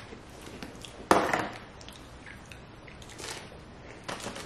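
A crunchy chocolate sandwich cookie being bitten and chewed: one loud, sharp crunch about a second in, then faint crunches and clicks.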